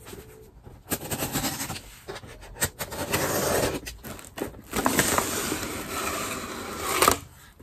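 Scissors scraping and cutting along the taped seam of a cardboard shipping box, with sharp clicks, then the cardboard flaps being pulled open.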